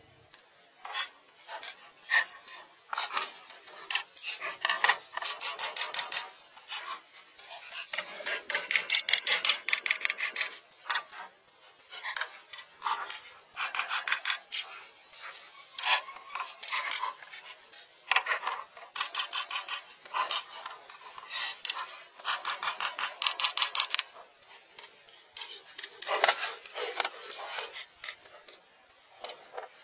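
Rapid, dry scratching strokes in uneven bursts, each from a fraction of a second to about two seconds long, with short pauses between them.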